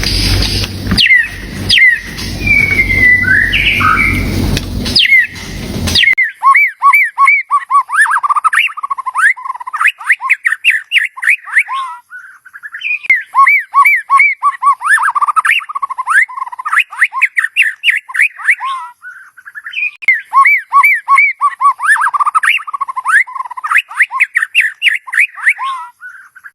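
White-rumped shama singing: quick runs of whistled notes, repeated in three bouts of about six seconds each with short breaks between. For the first six seconds a loud rushing noise lies under the song, and it cuts off suddenly.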